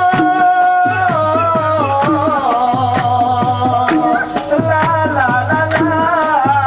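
Live band music with a maraca shake and a steady beat of drum strikes about twice a second over a bass pulse. A melody line holds one long note, then wavers and bends up and down.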